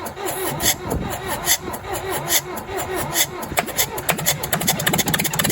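1963 Case 310F bulldozer's diesel engine cranking on the starter with even, slow compression beats. About three and a half seconds in, it fires on starting fluid and the beats quickly speed up as it briefly catches.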